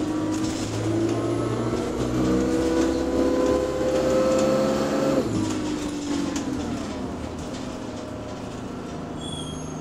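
Bus engine and driveline moaning as the bus pulls away: the moan rises in pitch for about five seconds, then drops away and falls as it eases off, settling lower. A few short high tones sound near the end.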